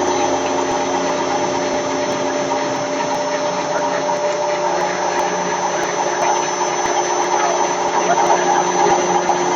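Screw rotor milling machine running steadily: a continuous machine hum with several steady tones under a haze of noise.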